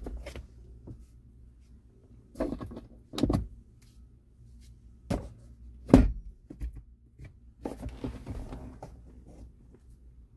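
A series of short clicks and knocks as a hand handles the sun visor and overhead trim of a 2014 Hyundai Tucson, the loudest about six seconds in, with a rougher rustling patch near the end, over a low steady hum in the closed cabin.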